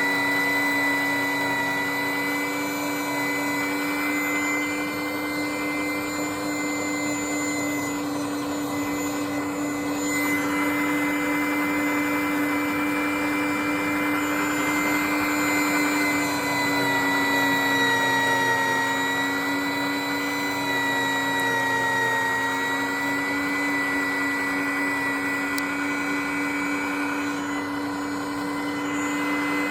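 Electric meat grinder motor running with a steady whine while grinding bananas, its pitch sagging slightly for a few seconds past the middle.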